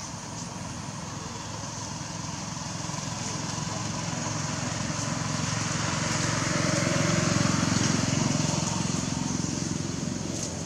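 A motor vehicle passing by, its low rumble growing louder to a peak about seven seconds in and then fading, over a steady high-pitched hiss.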